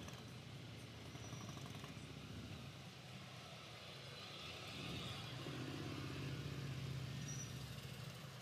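Motorcycle engines running at low revs, a low hum that grows louder from about halfway through as bikes come in.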